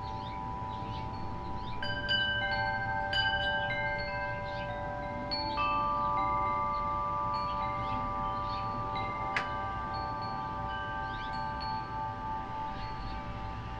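Wind chime ringing in the breeze, several notes sounding together and ringing on for many seconds. Fresh strikes come about two, three, five and a half and nine and a half seconds in, the last one with a sharp click.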